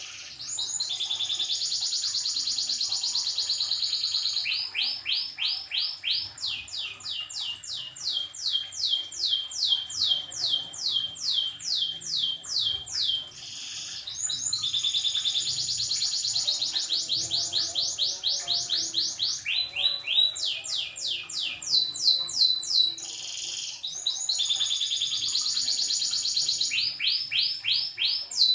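Domestic canary singing steadily: long, rapid rolls held for a few seconds, alternating with runs of quick, evenly repeated high notes, with only brief pauses between phrases.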